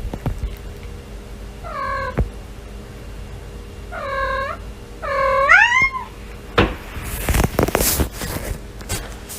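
A domestic cat meowing three times, the third meow longer, rising and then falling in pitch. A flurry of knocks and rustling follows in the second half.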